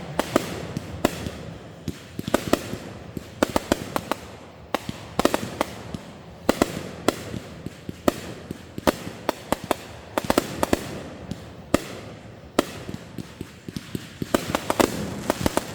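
Fireworks going off: many sharp bangs in quick, irregular succession, several a second at times, over a steady crackle and rumble.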